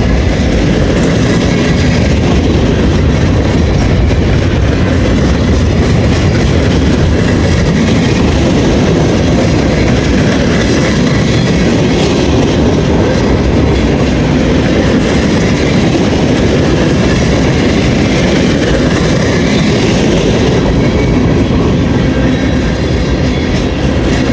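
CSX freight train's cars rolling slowly past, a steady, even noise of steel wheels on rail with clickety-clack from the rail joints.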